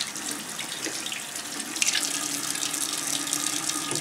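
Bathroom faucet running into the sink, with water splashing over hands being rinsed under it. The water cuts off suddenly at the very end.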